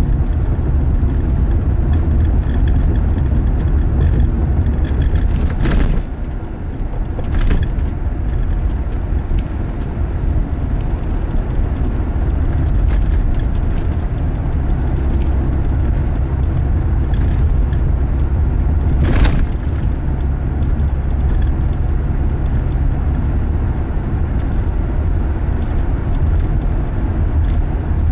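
Steady low road and engine rumble heard inside a moving car's cabin at cruising speed, with a few brief knocks, the loudest about nineteen seconds in.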